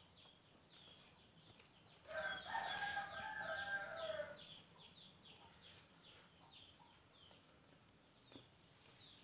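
A rooster crows once, a single long call of a little over two seconds starting about two seconds in. Small birds chirp repeatedly, short high chirps several times a second.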